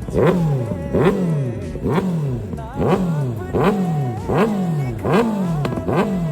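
Kawasaki ZX-6R's inline-four revved in about eight quick throttle blips. Each one rises sharply in pitch and falls back, repeating a little under once a second, through its exhaust.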